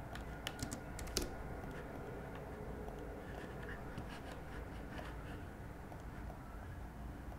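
Computer keyboard and mouse clicks: a quick cluster of clicks in the first second or so, then scattered single clicks, over a steady low hum.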